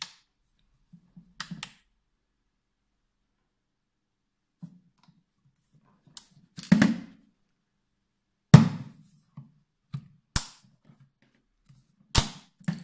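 Clicks and knocks from a magnetic LED work light being handled, set against a metal surface by its magnetic base and its switch pressed. There are about eight separate sharp knocks with pauses between them; the two loudest come near the middle.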